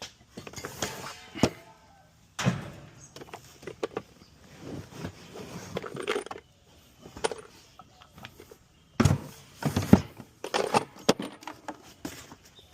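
Tools and metal parts being handled during HVAC work: irregular knocks, clanks and metallic clinks, with the loudest clatters about a second and a half in, near two and a half seconds, and again around nine to ten seconds.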